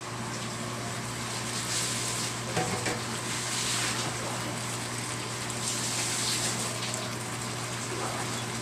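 Chicken and pork adobo simmering and sizzling in its sauce in a nonstick wok, an even bubbling hiss, over the steady low hum of the induction cooker.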